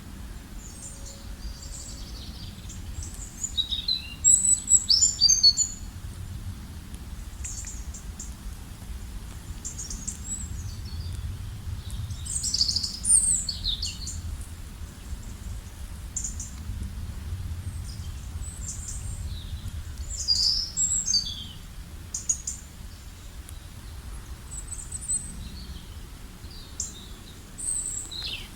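Birds singing and calling: scattered high chirps and short trills from several birds, with louder clusters about five, thirteen and twenty-one seconds in, over a steady low rumble.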